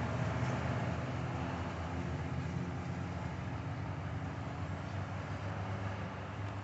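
Road traffic passing close by: a car and a pickup truck driving past, a steady rush of tyres on asphalt with a low engine hum.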